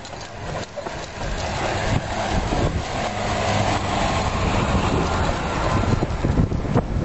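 Rumbling, rushing noise of jogging with two leashed dogs, the camera's microphone jostled and buffeted by wind, swelling louder in the middle.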